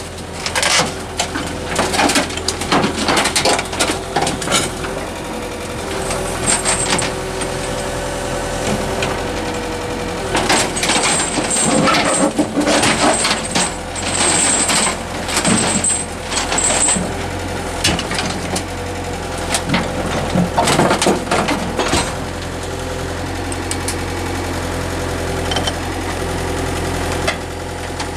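Diesel engine of a Komatsu PC75UU excavator running steadily, with repeated bursts of metal clanking and short high squeals as the machine moves during unloading from a truck.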